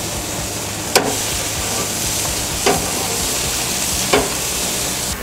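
Hamburger patties sizzling steadily on the grates of a propane gas grill, with three sharp clicks about a second and a half apart.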